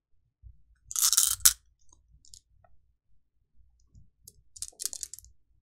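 Go stones clattering and clicking: a short rattle of stones ending in a sharp click about one and a half seconds in, then another light rattle near the end.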